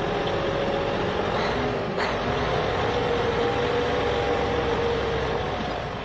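A truck engine running steadily, with a short click about two seconds in, fading out at the end.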